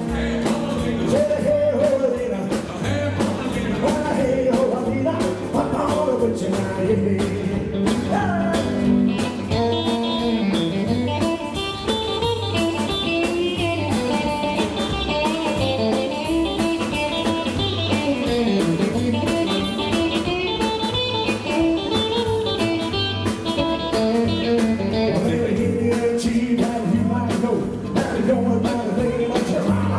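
Live rockabilly band playing: upright double bass, drums and electric guitar with a steady beat, with fast lead-guitar runs through the middle stretch.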